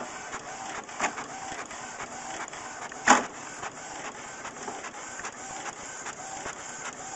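Multifunction printer feeding and printing a page, with short whirs and clicks repeating over and over. A sharp knock comes about three seconds in.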